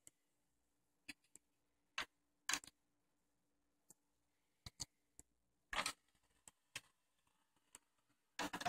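Faint, irregular clicks and light knocks, about a dozen scattered over several seconds, over a faint steady hum.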